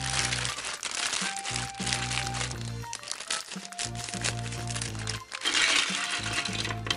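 Clear plastic bag of LEGO Duplo bricks crinkling as it is cut open with scissors and shaken out, in uneven surges that are loudest near the end, with background music.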